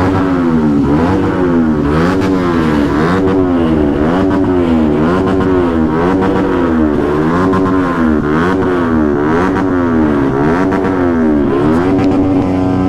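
A motorcycle engine revved up and down again and again in a steady rhythm, a bit more than once a second, then held at a steady pitch near the end.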